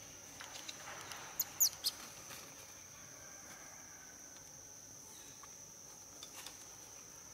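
Steady high-pitched insect drone from the forest, with three quick, sharp, falling chirps about a second and a half in, the loudest sounds.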